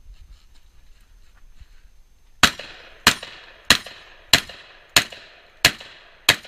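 Seven gunshots fired at a steady pace, a little over half a second apart, starting about two and a half seconds in, each followed by a short echo.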